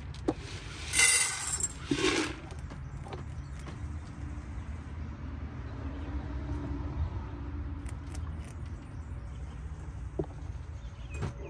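A few brief metallic rattles and rustles from handling at a rabbit hutch, the loudest about a second in, then a steady low outdoor hum with a couple of faint clicks near the end.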